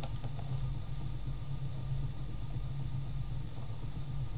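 Permanent-magnet DC motor spinning a flywheel wheel at a steady speed, giving an even low hum with a faint steady high-pitched whine above it.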